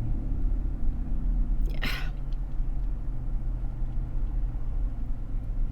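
Steady low rumble of a car, heard from inside the cabin, with a brief breathy hiss about two seconds in.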